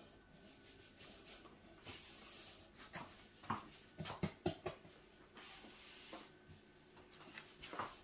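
Faint rubbing and a scatter of soft taps from hands working sticky bread dough out of a plastic mixing bowl onto a floured counter. Most of the taps come a little past the middle and again near the end.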